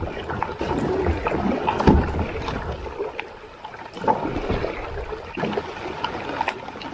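Kayak paddle strokes splashing in the water, with irregular splashes and a couple of low knocks about one and two seconds in.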